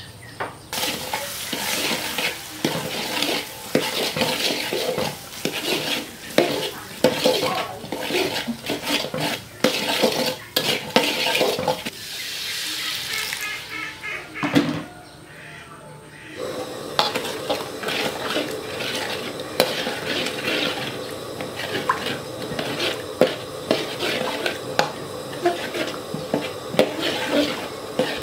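Metal spatula scraping and clattering against a steel wok while stir-frying. Near the middle there is a brief rising hiss as liquid goes in. After a short lull, steady stirring through the sauce resumes, with clinks of the spatula on the wok.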